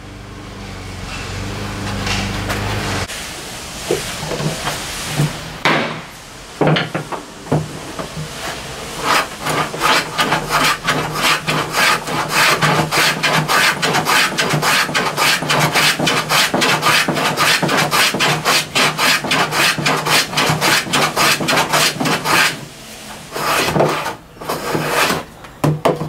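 A few wooden knocks and some handling, then a rabbet plane cutting along the edge of a cherry board in rapid, short, even strokes, about three a second, with a few more strokes near the end.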